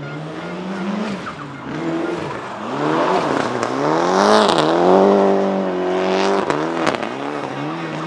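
Toyota Celica GT-Four ST185 Group A rally car's turbocharged four-cylinder engine driven hard past the spot, its revs rising and dropping several times through gear changes and lifts. It is loudest just after halfway, and a few sharp cracks come in the second half.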